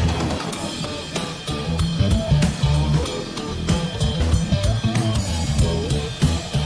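Background music track with a drum kit keeping a steady beat over a bass line.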